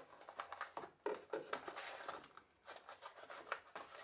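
Packaging being handled: irregular rustling and light clicks as accessories are taken out of a small cardboard phone-accessory box.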